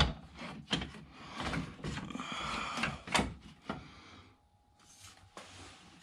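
Knocks, clunks and scraping as a new aluminium radiator is wiggled down into place in a Jeep JK Wrangler's front end. A sharp knock comes at the start and several more follow over the next four seconds, then it goes quieter.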